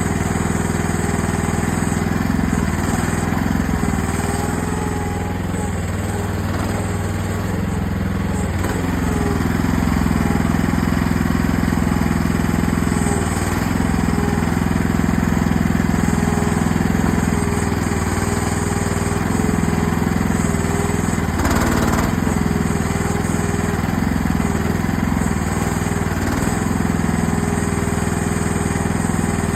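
AGT mini excavator's engine running steadily while it digs, its pitch and loudness dipping and recovering a few times. One brief clank about two-thirds of the way through.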